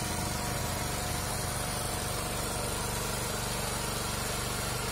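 Small engine running steadily, driving a screw oil expeller that is pressing seeds into oil and press cake.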